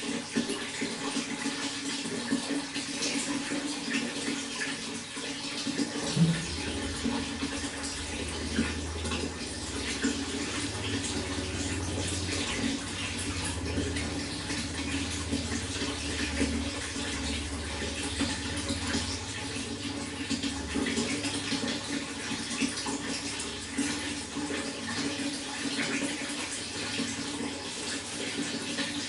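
Water running steadily, a continuous splashing rush with no break. A low rumble joins about six seconds in.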